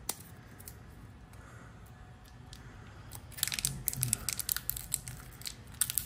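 Crinkling and tearing of a plastic backing strip as a sticky rubber tyre-repair plug is peeled off it. Faint handling at first, then a run of sharp crackles from about three seconds in.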